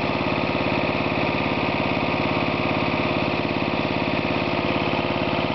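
Single-cylinder 10 hp Briggs & Stratton I/C lawn tractor engine running steadily at a constant speed, fed on propane piped straight into its air intake instead of through the carburettor.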